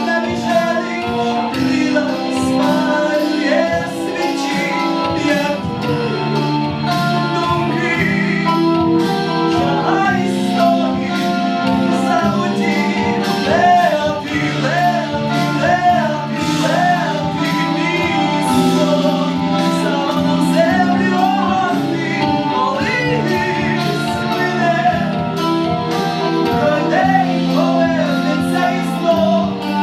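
Live band music with singing: a song played on instruments with a sung melody over it.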